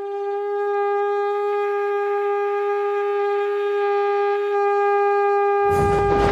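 Conch shell (shankh) blown in one long, steady note held for about six seconds. Near the end a loud, noisy din with low beats breaks in over it.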